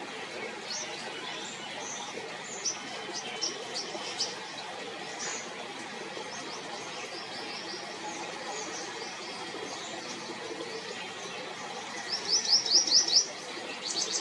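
Birds chirping: short, high calls scattered throughout, with a quick run of about eight loud chirps near the end, over a steady outdoor background hiss.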